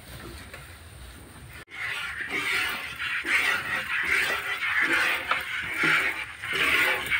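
Milk squirting from a cow's teats into a plastic bucket during hand-milking: hissing spurts in a rhythm of about two a second. It is faint for the first second and a half, then louder after a brief break in the sound.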